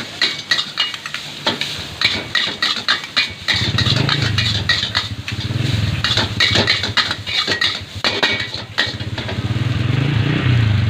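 Metal spatula clanging rapidly against a wok in quick runs of strikes as fried rice is stirred, with a motorcycle engine running close by from about a third of the way in.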